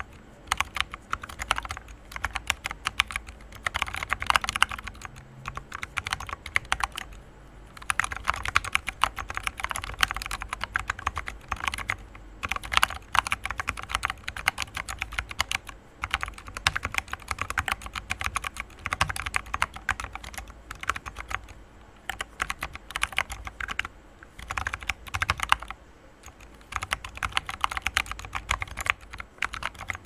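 Typing on a Plaid 40% ortholinear mechanical keyboard with clicky Everglide Jade switches and MT3 PBT keycaps: a fast, dense stream of key clicks in runs, with a short pause every several seconds.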